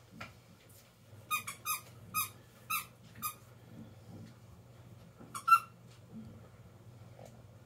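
A run of short, high squeaks: five in quick succession over about two seconds, then two more, the loudest, about five and a half seconds in.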